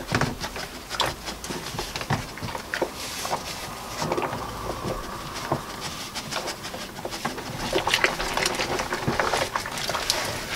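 Hand-washing a squirrel skin in a plastic bucket of soapy water: irregular sloshing, squelching and small splashes as the skin is squeezed and swished through the suds.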